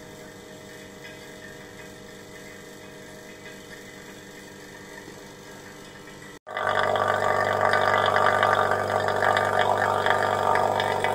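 Rotary vacuum pump running steadily as it roughs out the electron microscope's column with the diffusion pump off. It is pulling out gas, which the owner takes for moisture and dirt from the pipes. It is a low hum at first and becomes much louder and busier from about six and a half seconds in.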